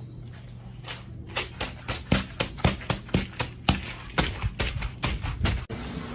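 A rapid series of sharp knocks, about three a second, starting about a second in and stopping abruptly near the end, over a steady low hum.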